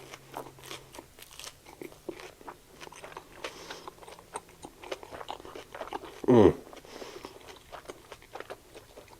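Close-up chewing of a panko-crusted Korean corn dog, the breadcrumb coating crunching in many small crackles. About six seconds in, a short voiced sound from the eater falls in pitch.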